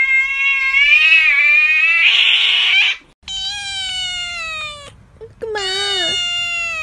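An angry cat's long drawn-out yowl that ends in a short hiss. Then a second cat gives two long yowls, each sliding down in pitch.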